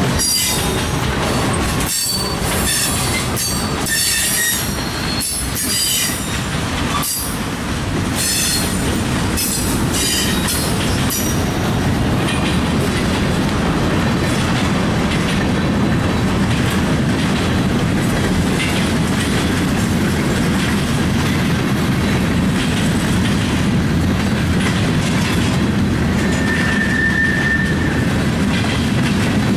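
Freight cars of a mixed freight train rolling past close by. Steel wheels squeal on and off over the first ten seconds or so, then give way to a steady rumble of wheels on rail, with one brief squeal near the end.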